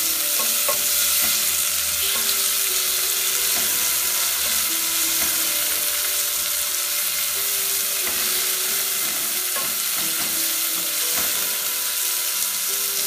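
Sliced onions frying in a little oil in a nonstick pot, a steady sizzle, while a wooden spatula stirs them around the pan.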